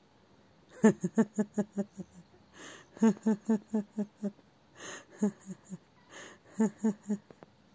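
A woman laughing in four runs of quick pulses, with gasping breaths between the runs.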